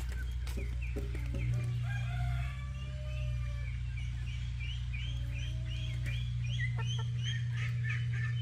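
Chickens clucking, with a quick run of short repeated calls through the middle, over a steady low hum.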